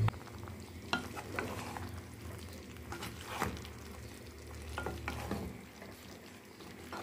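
A spoon stirring battered fried chicken and peppers through sweet-and-sour sauce in a nonstick pan, with a light sizzle and scattered soft scrapes and knocks against the pan. A low hum stops about five and a half seconds in.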